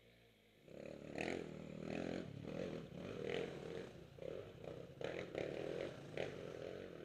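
Trail motorbike engine revving in uneven bursts, suddenly getting loud about a second in.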